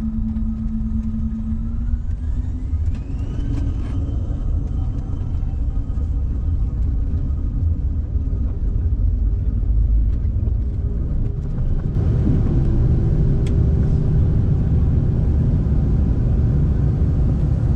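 Jet airliner cabin noise: a steady low rumble with a rising whine about two seconds in, as the engines spool up. The rumble gets louder about twelve seconds in.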